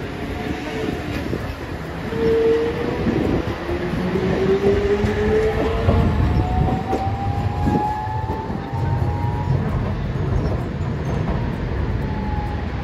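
A Hiroden streetcar rolls past close by on street-running track. Its motor and gear whine rises steadily in pitch as it gathers speed, over a steady rumble of the wheels on the rails.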